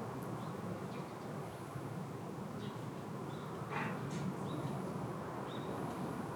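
Outdoor ambience: a steady low background rumble with a few faint, short bird chirps, and one brief louder chirp-like sound near the middle.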